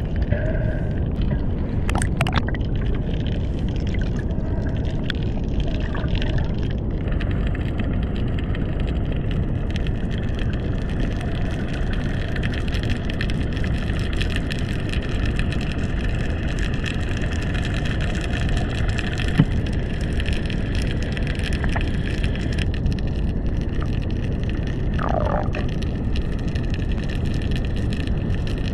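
Steady low rushing of water and current heard through an underwater camera while diving, with a sharp click about two seconds in and a short squeak falling in pitch near the end.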